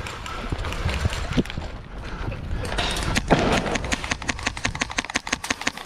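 Rapid string of airsoft shots, about seven or eight a second, from an HPA SIG MCX airsoft rifle with a PolarStar Kythera engine, in the second half. Before it come low thumps of running footsteps and a loud knock.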